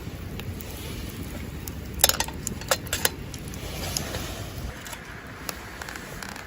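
Campfire crackling, with a cluster of sharp pops about two to three seconds in, over a low steady rumble of wind on the microphone.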